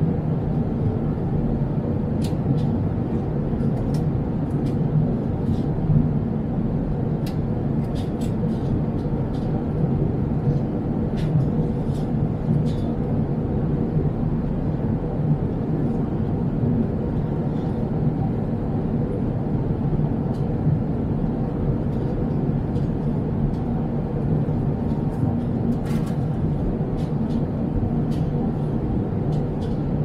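Jet airliner cabin noise at cruise, heard beside the wing-mounted turbofan engine: a steady, even rumble and rush of engine and airflow, deep in pitch with a faint underlying hum. A few faint small ticks are scattered through it.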